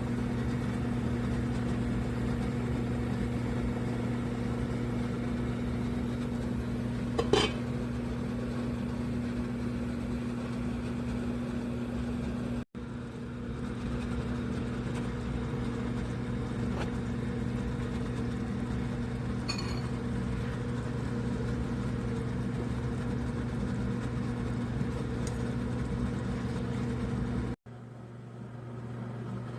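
A steady mechanical hum from a running electric motor or appliance, with a few light clinks over it. The hum breaks off abruptly twice and resumes.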